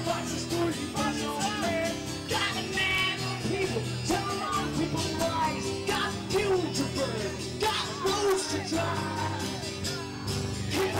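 Live rock music with singing over a steady beat, played to a packed, dancing crowd.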